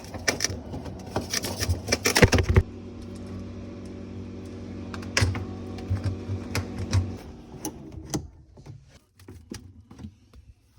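Repeated clicks and rattles of parts being handled inside a refrigerator freezer, over a steady hum that stops about eight seconds in, followed by a few fainter clicks.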